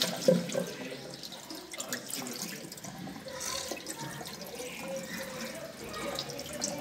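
Water running from a sink tap into the basin, splashing over hands and a wet kitten being rinsed under the stream, with small splashes and drips.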